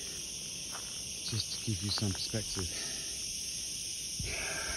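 A steady, high-pitched chorus of insects singing without a break.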